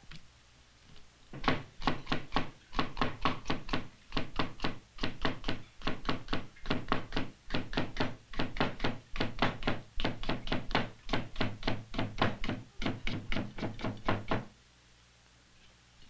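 Chinese cleaver slicing a cucumber on a wooden chopping block: a quick, even run of knocks, about four a second, as the blade strikes the board. It comes in a few runs with brief pauses and stops shortly before the end.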